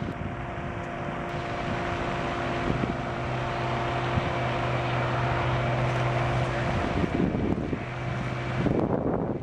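A steady engine drone with wind on the microphone, growing slowly louder and then fading away near the end.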